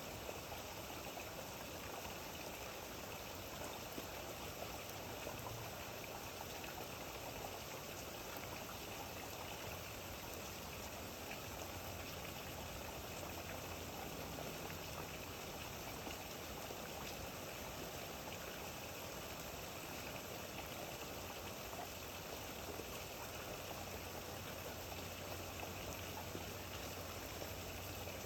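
Steady rain falling: an even hiss made up of many small drop ticks.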